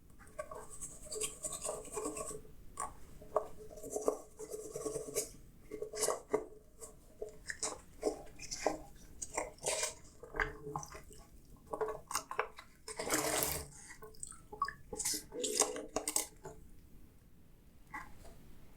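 Dishes being washed by hand: irregular clinks and knocks of crockery and cutlery with soft scrubbing and drips, and a short rush of water about thirteen seconds in.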